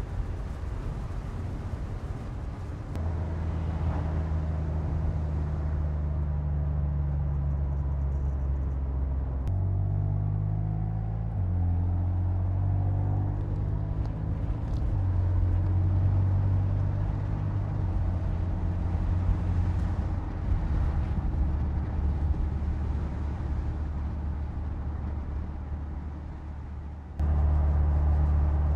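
BMW M4 Convertible's twin-turbo straight-six engine running at a steady cruise, its note shifting to new pitches a few times. Near the end it turns abruptly louder.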